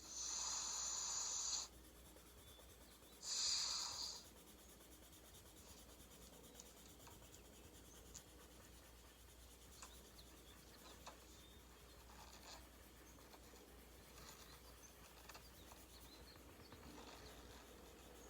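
Colouring strokes scratching across a colouring-book page: two long, louder scratchy strokes in the first four seconds, then faint light scratches and small ticks.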